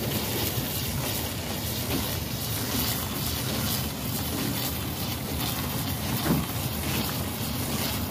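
Steady rushing hiss of water spraying from a hose onto a rooftop packaged air-conditioning unit, mixed with wind buffeting the microphone. A brief knock about six seconds in.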